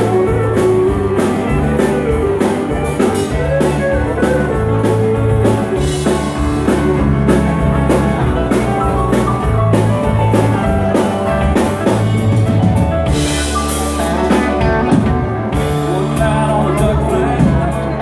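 Live dance band playing an upbeat rock-and-roll number with electric guitars, bass and a drum kit keeping a steady beat, and a singer.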